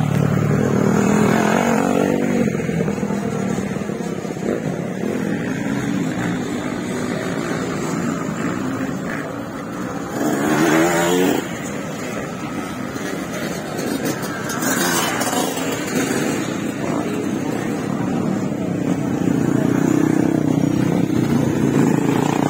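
Motocross dirt bike engines revving up and easing off as the bikes ride the track's turns and jumps. One bike gets louder and revs hard for about a second, roughly ten seconds in.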